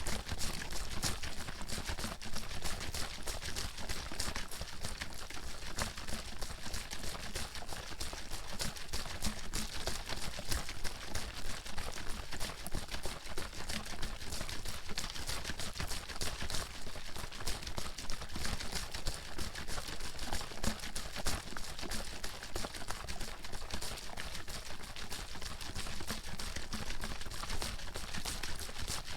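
Water sloshing and splashing inside a bottle that is shaken rapidly and without pause, a dense run of quick sloshes.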